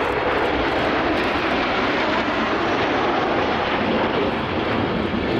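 Formation of Alpha Jet trainers flying past, their jet engines making a steady, loud roar.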